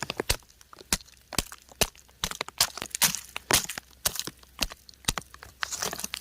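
Raindrops pattering on crumbling rock: irregular sharp ticks, about three a second, with brief patches of softer hiss.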